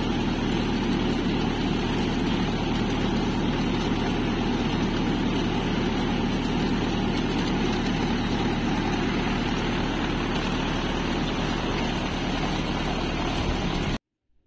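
Garlic planter running, its cup-chain metering mechanism rattling steadily over the hum of the engine driving it. The sound cuts off suddenly near the end.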